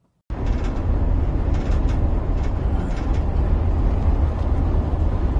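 Road noise inside a moving car's cabin: a loud, steady low rumble of tyres and wind that cuts in suddenly just after the start.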